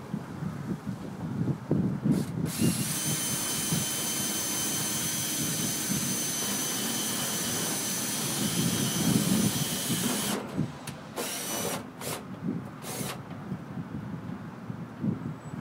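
Power drill running with a steady high whine for about eight seconds, then several short bursts a few seconds later as the trigger is pulsed, while parts are fastened into a fluorescent light fixture during a ballast replacement. Some low knocks from handling come before it.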